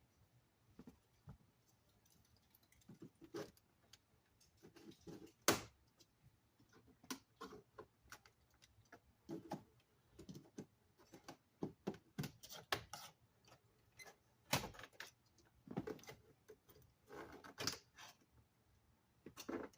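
Scattered clicks, taps and light rattles of hands working on a car's dashboard and handling tools, at irregular times, with one sharper knock about five and a half seconds in.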